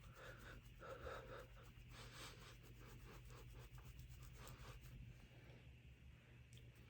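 Faint, repeated short strokes of a makeup brush sweeping powder bronzer.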